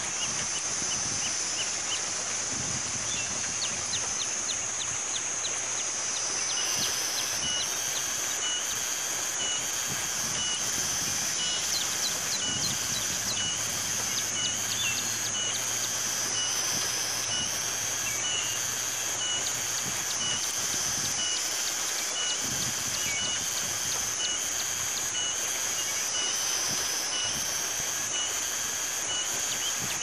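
Outdoor birdsong ambience: small birds calling in short notes repeated at an even pace, over a steady high-pitched hiss that slowly swells and fades.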